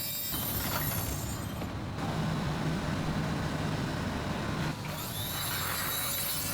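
Steady industrial machine noise with a low hum, changing abruptly about two seconds in and again near five seconds.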